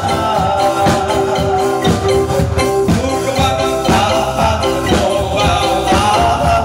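Music with a steady percussion beat under a melody.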